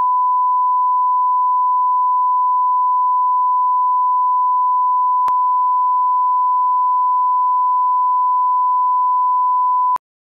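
Steady 1 kHz broadcast line-up tone, a single pure beep played under SMPTE colour bars, cutting off abruptly about ten seconds in.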